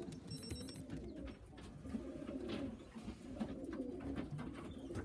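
Homing pigeons cooing, low repeated wavering calls, with a few light knocks in between.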